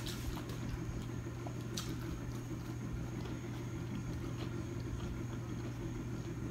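A steady low hum over a soft rumble, with a few faint clicks.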